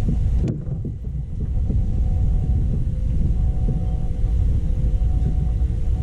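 Wind buffeting an action camera's microphone on open water: a loud, steady low rumble that dips briefly about a second in. Faint knocks come from gear being handled on the kayak deck.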